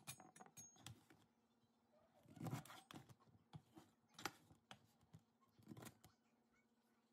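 Faint, crisp cuts of a chef's knife through celery, each ending in a knock on a plastic cutting board. A quick run of small cuts comes first, then single cuts every second or two.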